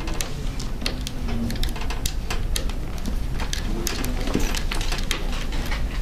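Irregular small clicks and taps of a screwdriver turning out the hard-drive screws in a laptop's metal drive bay, over a steady low hum.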